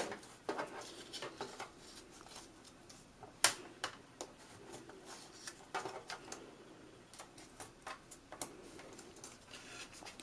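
Cardstock being folded along its score lines and pressed flat with a bone folder on a scoring board: a scatter of small paper clicks and crinkles, with one sharper tap about three and a half seconds in.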